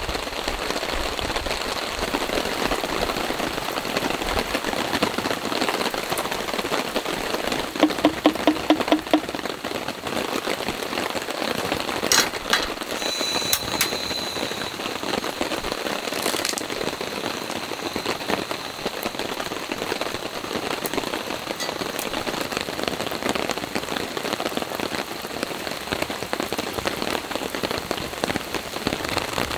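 Steady rain falling on the camping tarp, an even patter with no letup. About eight seconds in comes a short quick run of pulses, and a few sharp clicks follow around twelve to fourteen seconds in.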